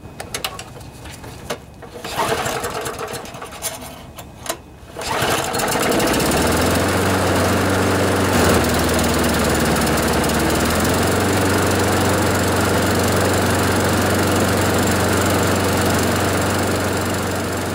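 Clatter of the air filter cover being fitted onto a Briggs & Stratton single-cylinder lawnmower engine. About five seconds in the engine starts and then runs steadily, firing up promptly now that its primer bulb has been confirmed to work.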